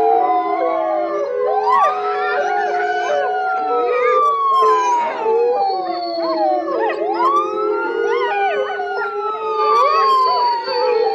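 A pack of canines howling in chorus along with a wailing emergency siren. The siren climbs and then slides slowly down about twice, while many howls waver and overlap around it.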